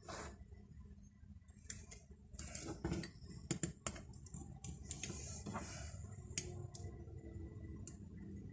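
Scattered light metallic clicks and clinks of an old King Dick wrench being handled and worked at with a hand tool, its screw stiff and tight in its hole.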